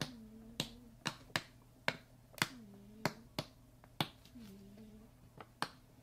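Fingernails picking and clicking at the sealed top of a small plastic slime jar: a string of sharp, irregular clicks, two or three a second. The seal is stubborn and will not come open.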